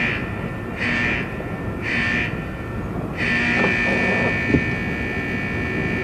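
An electronic tone pulses three times about a second apart, then holds steady, over a low machine rumble.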